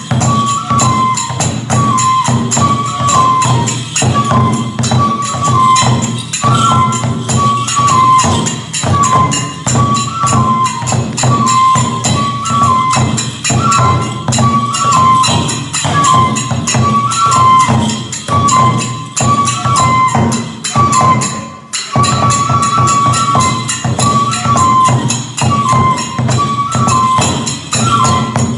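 Kagura festival music: a bamboo flute repeating a short melody over rapid drumbeats and clashing hand cymbals that ring steadily on top.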